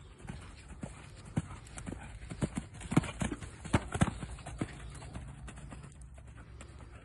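A horse's hoofbeats cantering on a sand arena surface, growing louder as it passes close by about three to four seconds in, then fading as it moves away.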